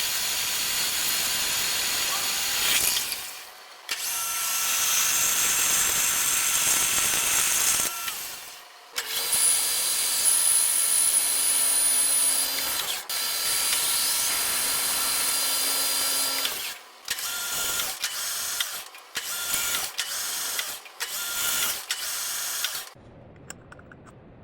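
Metalworking machine tools (lathe and milling machine) cutting metal, a steady machining noise with faint high whines. It comes in stretches of a few seconds broken by sudden cuts, with shorter bursts near the end before it drops away.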